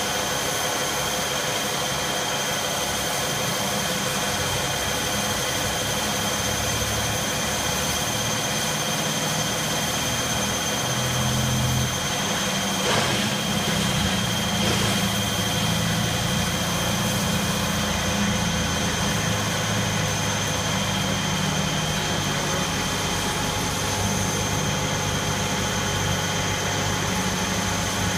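Johnford CNC milling machine running a right-angle drilling head through a deep hole: a steady high whine over a low machine hum that shifts in pitch, with a brief click about 13 seconds in.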